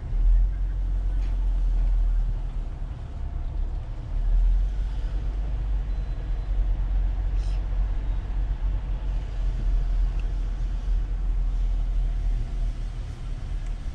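Car engine and road rumble heard from inside the cabin as the car rolls slowly forward. It is a low steady drone that swells just after the start and again about four seconds in.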